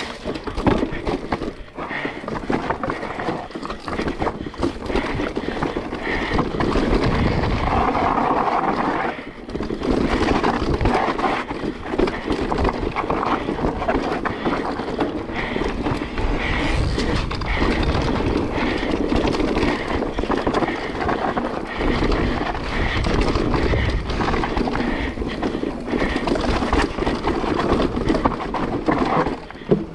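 Decathlon Stilus electric mountain bike ridden down a dirt trail: a steady rolling rumble from the tyres with constant rattles and knocks from the bike over the bumps. Wind buffets the microphone.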